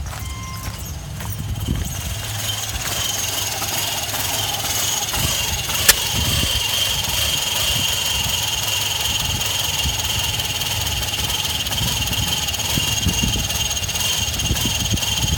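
2005 Subaru Outback XT's 2.5-litre turbocharged flat-four idling roughly, with an uneven low pulsing and a steady high-pitched whine over it, and one sharp click about six seconds in. A bad idle after a turbo replacement, which the owner suspects comes from the tumble generator valves.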